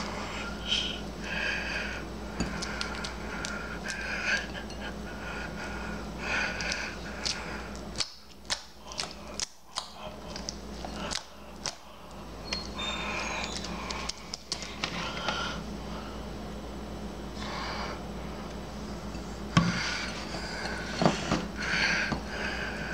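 Homemade slime being kneaded and stretched by hand, giving irregular sticky clicks and pops, over a steady low hum.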